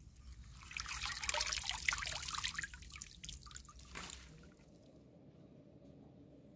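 Hands swishing spinach leaves through water in a large metal basin, with splashing, sloshing and dripping. It starts about a second in, stops about four seconds in, and then fades to quiet.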